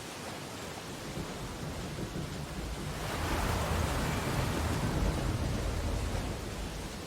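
Rainstorm ambience: steady rain hiss, with a low rumbling swell that builds from about three seconds in and fades out near the end.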